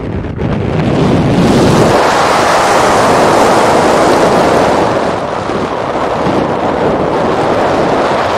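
Air rushing over a skydiver's camera microphone during a parachute descent under an open canopy: a steady, loud rush of wind noise that eases slightly about five seconds in.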